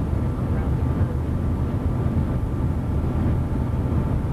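Steady road noise of a car driving at highway speed, engine and tyres heard as a low rumble from inside the cabin.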